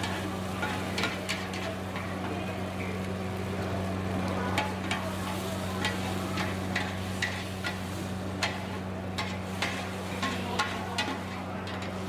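Two metal spatulas scraping and clicking against a large flat wok as food is flipped, over the sizzle of frying. A steady low hum runs underneath.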